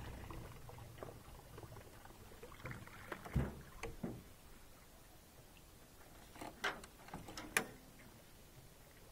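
Knocks and clunks from a small metal boat's hull as a man in rubber boots moves about in the bow and climbs out onto the launch. The loudest is a dull thump about three seconds in, followed by a few lighter knocks, and sharper clanks come about six and a half and seven and a half seconds in.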